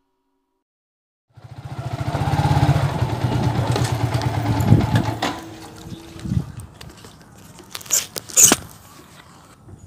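Motorcycle engine running close by. It cuts in suddenly about a second and a half in, grows louder, then drops away about five seconds in as the bike slows. A couple of sharp knocks or scrapes follow near the end.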